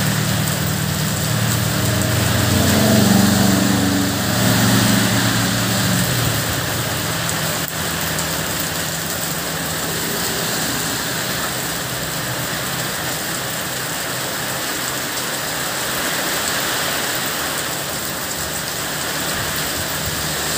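Heavy rain pouring steadily onto the road and pavement. A motorcycle engine passes during the first six seconds, and another passes more faintly about ten seconds in, its tyres swishing through the water.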